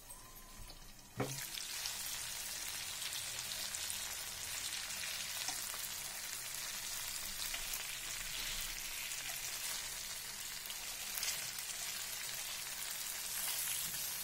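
Marinated fish steaks shallow-frying in hot oil in a pan: a steady sizzle with fine crackle. It is faint for about the first second, then jumps much louder after a click, and a spoon moves the pieces in the oil.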